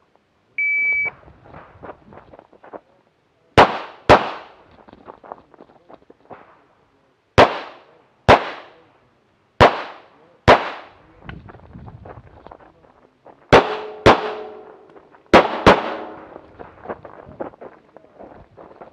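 A shot timer gives one steady high beep about half a second in. Then a Tanfoglio Limited pistol fires about ten shots, mostly in quick pairs (double taps), with small clicks and scuffs from the shooter moving between pairs.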